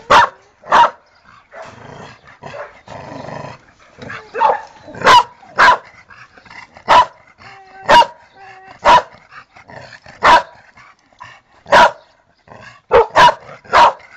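Pit bull barking: about a dozen single barks at uneven intervals of roughly a second, three of them close together near the end. A rough, lower, noisier sound comes between the barks about two to three seconds in.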